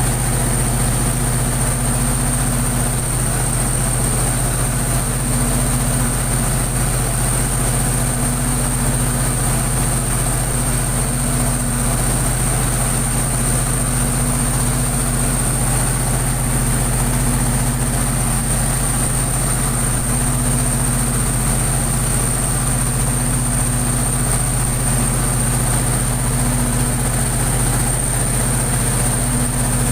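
Diesel generator set running steadily at constant speed, a deep even engine hum with a thin high whine over it.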